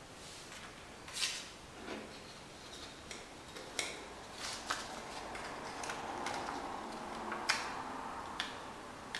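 Handling noise from a plastic wheel center cap and a paper measuring card: rustling of the card and a handful of sharp clicks and taps as the cap is turned over and set against it.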